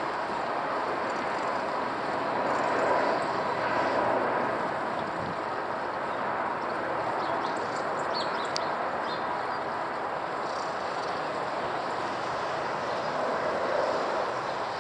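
Jet engines of a four-engined Boeing 747-400 airliner on landing approach with its gear down, a steady rushing roar overhead that swells slightly a few times.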